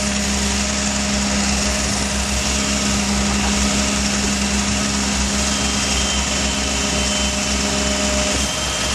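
Doosan excavator's diesel engine running steadily, with a faint high whine joining in a little past halfway.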